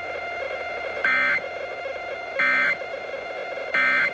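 Emergency Alert System end-of-message data bursts: three short, identical buzzy digital chirps about a second and a half apart, marking the close of a tornado warning broadcast. Steady radio hiss runs underneath.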